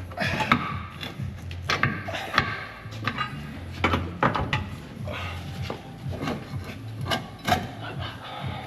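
Irregular clunks, knocks and scraping of metal suspension parts being worked by hand as the front hub assembly is pulled outward, taking care not to pull the drive shaft out.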